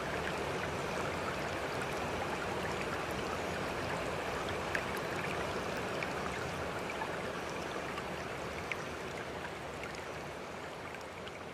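Steady sound of running water, with a few small scattered drips, slowly fading out near the end.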